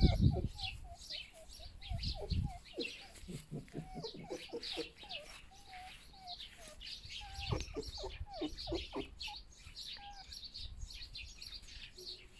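Red fox whining in a long run of short, high, wavering whimpers, several a second. It is the plaintive food-carrying whine of a fox bringing meat to its companion.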